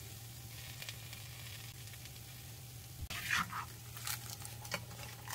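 Bánh xèo batter frying in an oiled pan, sizzling faintly, with a steady low hum underneath. From about three seconds in come a few sharp scrapes and knocks against the pan.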